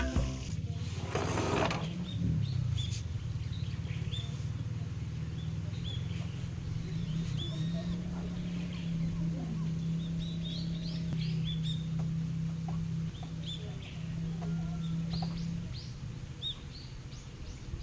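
Small birds chirping in short, scattered calls, over a steady low hum.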